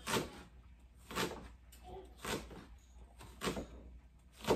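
Chef's knife chopping ginger on a plastic cutting board: five sharp knocks of the blade on the board, about one a second.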